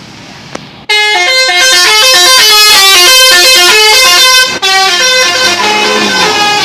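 Telolet bus horn, a multi-tone musical air horn, blaring a rapid tune of changing notes. It starts abruptly about a second in, breaks off for an instant around four and a half seconds, then plays on.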